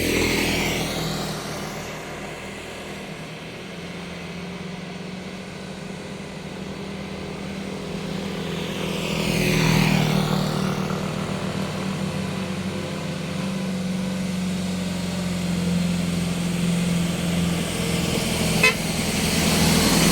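Road traffic passing close by with engines running: one vehicle goes past at the start and another just before the middle, over a steady low engine hum. A single sharp click comes near the end.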